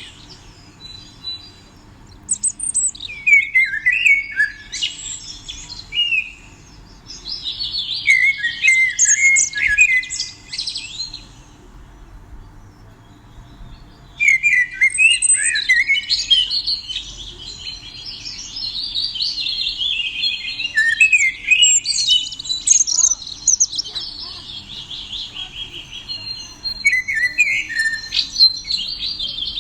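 A songbird singing rapid chirps and trills in phrases: two short phrases early on, a pause, then a long unbroken song from about halfway through.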